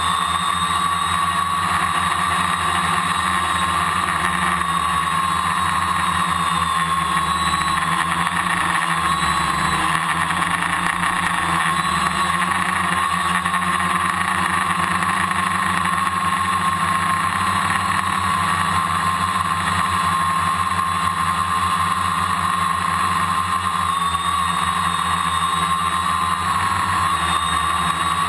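A drone's motors and propellers whirring, heard from the camera mounted on the drone itself. The high buzz is steady, and its pitch wavers slightly as the throttle shifts.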